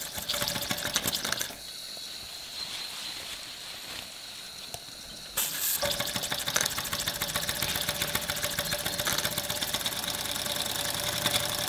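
Model three-cylinder steam engine being flicked over by hand: it chuffs briefly and stops, leaving a steady hiss of steam, then about five seconds in it catches and runs steadily with rapid, even exhaust beats.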